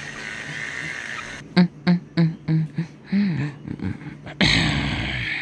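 A person's voice making a quick run of about six short, clipped vocal noises, like play sound effects. Near the end a louder, steady rustling noise starts.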